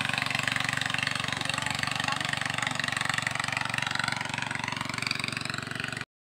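Small motorboat engine running steadily at an even pitch; the sound cuts off abruptly near the end.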